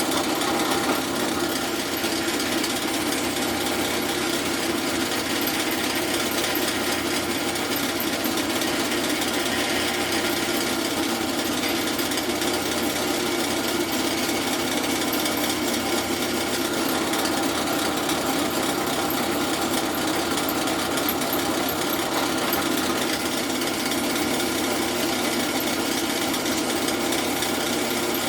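Drill press running steadily while drilling a bolt hole through a homemade exhaust flange.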